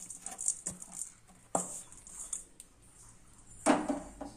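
A spoon clicking and knocking against a plate as the sticky cooked date mixture is handled, with a sharp tap about a second and a half in and a louder scraping knock near the end.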